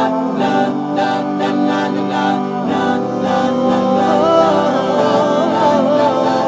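Background nasheed: voices singing a held, wavering devotional melody.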